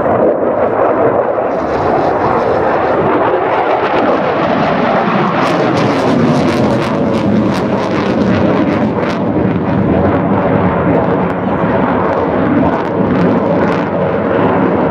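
Military display aircraft flying past, a loud continuous rushing engine noise with sharp crackles through the middle and again near the end.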